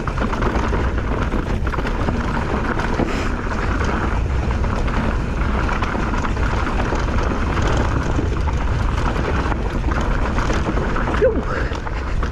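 Steady wind noise on the microphone with the rumble and rattle of a mountain bike riding fast down a dirt trail, and a short squeak near the end.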